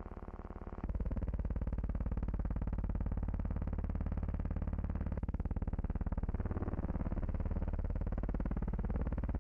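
Racing cars' engines on an old, band-limited film soundtrack: a coarse, buzzing drone that gets louder about a second in, its pitch rising and falling a little as cars pass.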